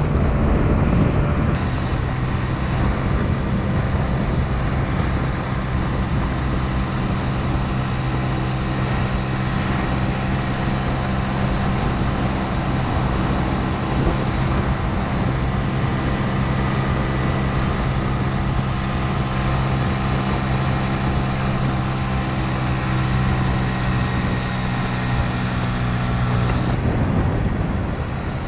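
Scooter engine running at a steady speed on the road, with wind and tyre rush over it. Its steady note breaks off near the end, leaving mostly wind and road noise.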